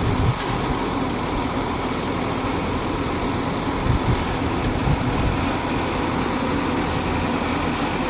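Heavy diesel engine running steadily, with a few brief surges in loudness.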